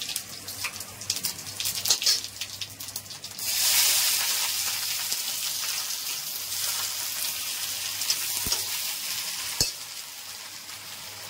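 Asafoetida and cumin seeds crackling in hot oil in a kadhai. About three and a half seconds in, chopped onions go into the oil with a sudden loud sizzle that slowly eases off, and there are two knocks of the spatula against the pan near the end.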